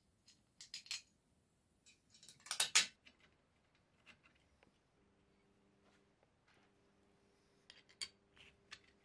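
Light metallic clinks and taps of aluminium frame parts and bolts being handled as a foot plate is fitted to the end of an extrusion rail. The loudest clatter comes about two and a half seconds in and another quick run comes near the end, with a faint steady hum from about halfway.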